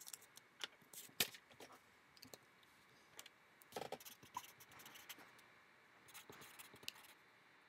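Faint, irregular clicks and light scrapes, with one sharper click about a second in: small handling noises.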